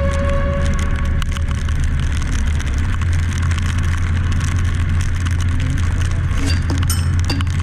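Kawasaki Wind 125 motorcycle on the move: a steady low engine drone with wind noise, growing stronger about three seconds in.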